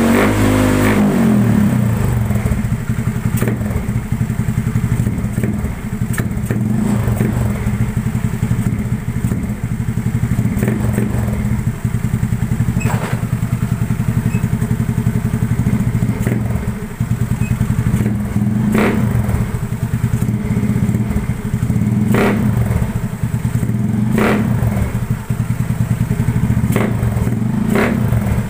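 Yamaha Mio Sporty scooter's single-cylinder four-stroke engine running at a fairly steady pace through a gutted 'kalkal' exhaust pipe, a loud, rapid pulsing note, with occasional brief thumps.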